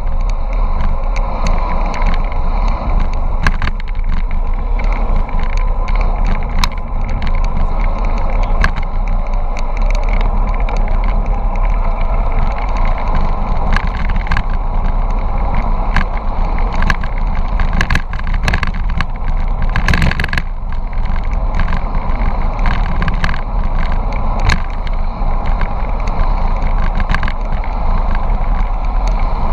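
Steady wind and road noise from a bicycle coasting downhill at speed, with a heavy low rumble of wind on the camera's microphone and frequent short clicks and rattles from road bumps; a brief louder gust about twenty seconds in.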